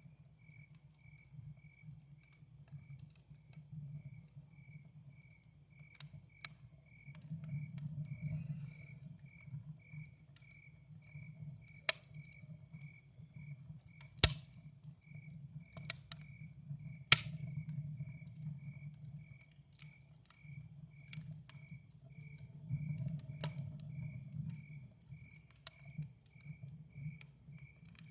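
Campfire crackling, with scattered sharp pops of burning wood, the loudest about halfway through. Under it, crickets chirp at one high pitch in a steady, even rhythm, a little under two chirps a second.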